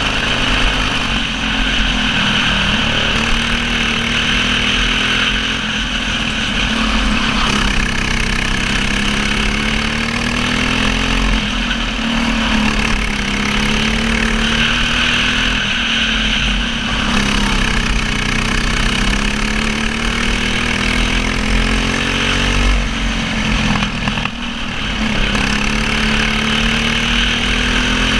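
Racing kart's engine heard from on board at race pace, its pitch climbing along the straights and dropping back as it slows for corners, about five times.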